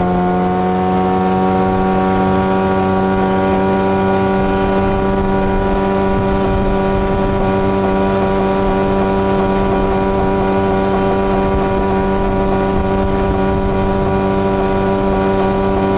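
Outboard boat motor running at a steady high speed, its pitch rising slightly in the first couple of seconds and then holding even.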